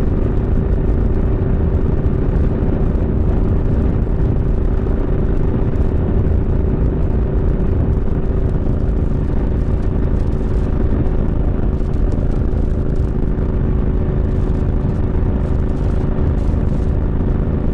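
Steady engine and road noise from a vehicle cruising at an even speed: a continuous low rumble with a steady hum over it, unchanging throughout.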